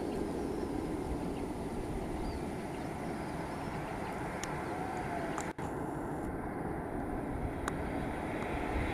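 Boeing 737 jet airliner on final approach, its engines a steady distant rumble that gains a little high-pitched whine near the end as it draws closer.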